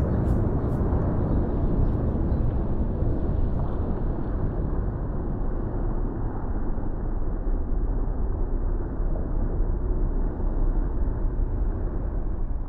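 Steady deep rumbling of a volcanic eruption, heaviest in the bass, with no separate blasts.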